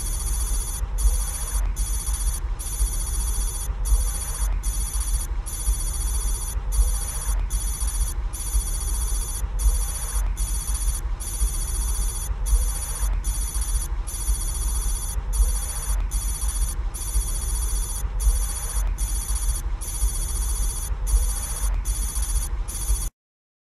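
An electronic ringing tone, high and steady, broken by short gaps at uneven intervals, over a constant low hum; it cuts off suddenly near the end.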